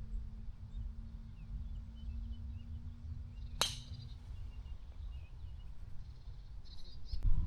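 A golf ball struck once by a club: a single sharp crack about three and a half seconds in, over a low wind rumble on the microphone.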